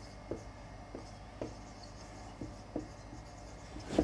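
Marker pen writing on a whiteboard: quiet, irregular short strokes and taps as the words are written out.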